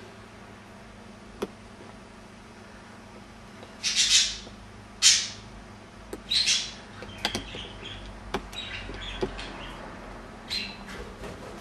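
Budgerigars calling: a few loud, harsh chirps about four to seven seconds in, then softer chirping, with scattered sharp clicks.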